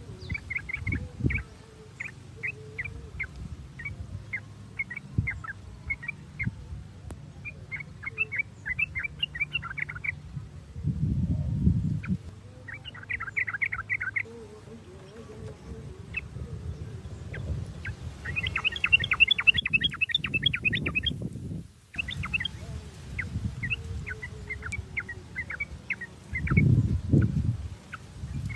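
Yellow-vented bulbuls (trucukan) chattering: quick runs of short, bright notes, over and over, the busiest stretch a little past the middle. Several louder low rumbling bursts come in underneath.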